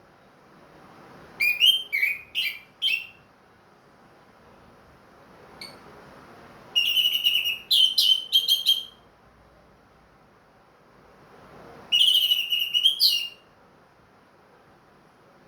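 Orange-headed thrush (anis merah) singing in three loud bursts of quick, clear whistled notes, with pauses of a few seconds between the phrases.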